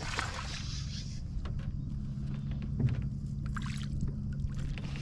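Steady low hum of a boat motor, with a splashy hiss in the first second and scattered light clicks and knocks over it.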